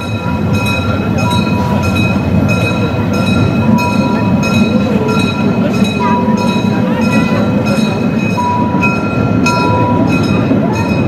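Narrow-gauge steam train running, heard from an open wagon within the train: a steady rolling rumble of wheels on the track with a regular beat about twice a second, and thin steady high tones over it.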